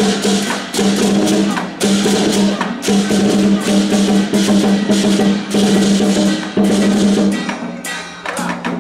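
Lion dance percussion band playing: a drum with clashing cymbals and a ringing gong in a steady, driving rhythm, pausing briefly near the end.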